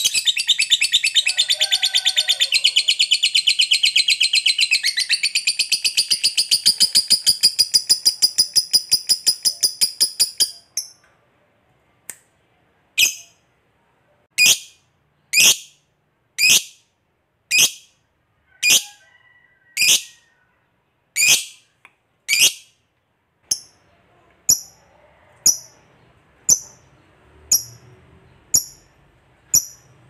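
Lovebird giving a long, very fast chattering trill, the prized 'ngekek panjang', which breaks off about ten seconds in. After that come sharp single high chirps, about one a second.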